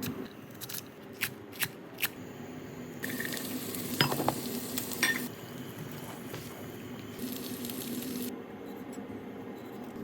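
Cooking in a cast-iron pan. First a handful of sharp taps, then food sizzling with a hiss, broken by a few metal clinks of a utensil against the pan, and a second, shorter burst of sizzling near the end. A steady low hum runs underneath.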